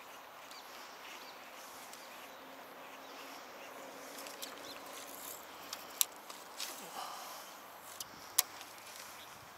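Steady faint outdoor background hiss, with a handful of sharp clicks in the second half, the two loudest about six and eight and a half seconds in.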